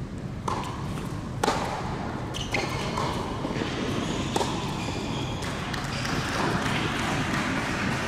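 Tennis rally on an indoor hard court: a series of sharp racket-on-ball hits and ball bounces, about one a second, each echoing briefly in the hall, over a steady low hall noise.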